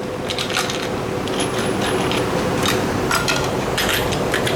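Irregular metallic clicks and clanks over a steady mechanical hum, the sound of shop work on metal parts.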